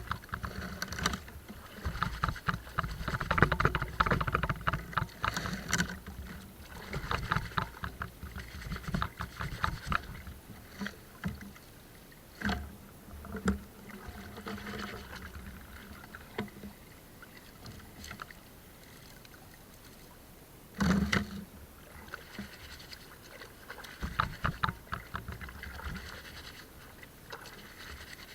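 Water sloshing and irregular knocks and clicks around a small boat, with one louder thump about two-thirds of the way through.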